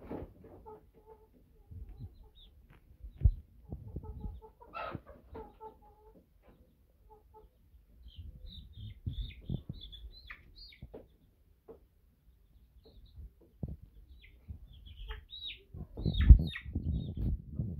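Young chickens calling in short, high chirps and clucks, scattered through the middle and late part, over rustling and knocks from handling a bird; the loudest sound is a knock near the end.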